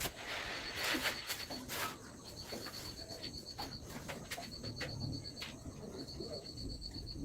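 An insect trilling outdoors: a high, rapid pulsing at about ten pulses a second, coming in runs of a second or two with short breaks. Scattered light clicks and a rustle are heard in the first two seconds.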